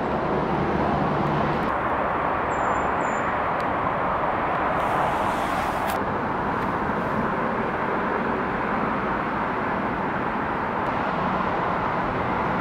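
Steady background noise of distant road traffic, with no distinct events.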